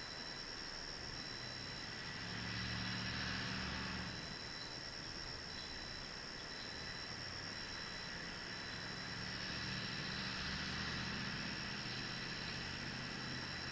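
Outdoor ambience picked up by a trail camera's microphone: a steady high-pitched hiss and whine, with a low rumble that swells briefly around three seconds in and again for a few seconds near the end.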